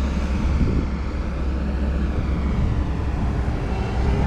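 Asphalt paver's diesel engine running steadily with a low rumble.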